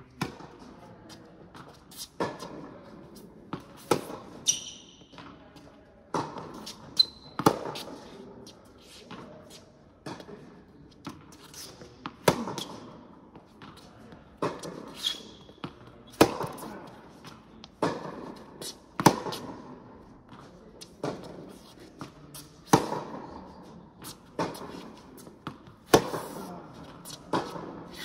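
Tennis rally on an indoor hard court: sharp racket strikes and ball bounces come every second or two, each ringing in the hall's echo. There are a few brief high squeaks from shoes on the court.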